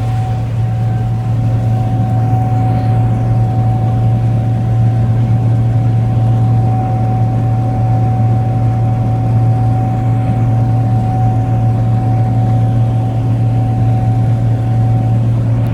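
Gleaner R55 combine harvester running steadily: a deep, even engine drone with a constant high whine over it.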